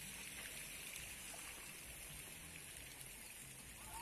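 Faint, steady outdoor background hiss of distant running water.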